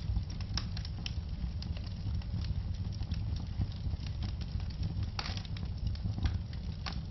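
Wood fire in a fireplace crackling and popping: many small snaps over a steady low rumble of burning logs, with a sharper pop about five seconds in.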